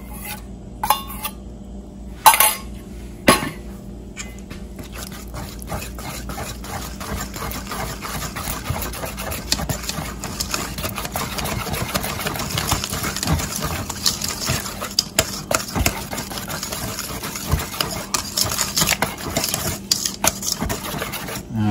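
Wire whisk beating a butter, honey and yogurt batter in a stainless steel mixing bowl: a fast, dense rattle of the wires against the steel that grows louder. A few sharp knocks in the first few seconds.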